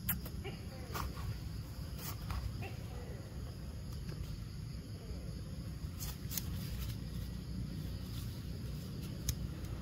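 Outdoor ambience: a steady low rumble with a few sharp clicks scattered through it, and faint far-off voices.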